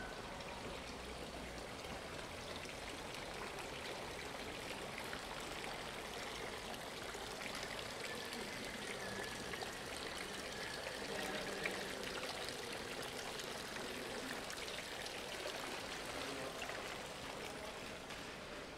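Steady rush of running water, growing a little louder in the middle and easing slightly near the end.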